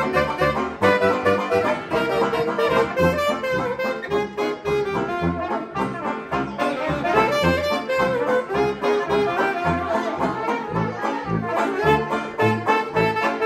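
Small hot jazz band playing an instrumental passage, with saxophones and trumpets on the melody over a sousaphone bass line pulsing on the beat.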